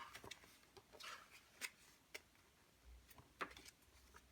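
Faint, scattered clicks and short rustles of packaging and parts being handled in an unboxing.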